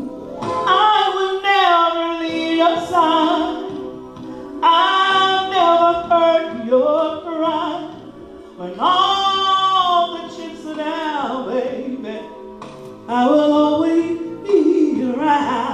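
A slow song sung by a woman over sustained instrumental accompaniment, in four long phrases with short breaths between them.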